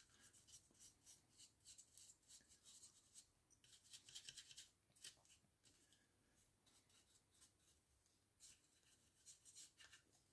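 Faint, rapid scratchy strokes of a large brush dry-brushing a primed miniature, the stiff bristles flicking over its raised edges. The strokes come in runs, with a pause of a couple of seconds a little past the middle.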